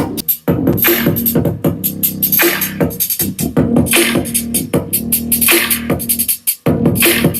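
Electronic, hip-hop-style music with a drum-machine beat, played through a portable 10-watt Bluetooth speaker in a sound test. The music drops out briefly twice, once just after the start and once near the end.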